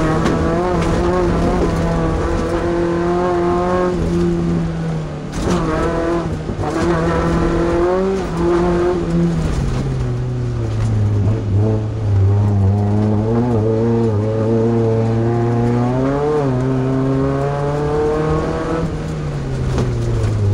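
Class 2 off-road race truck engine under hard racing load, revving up and dropping back repeatedly as it shifts gears and lifts off, with a brief clatter about five seconds in.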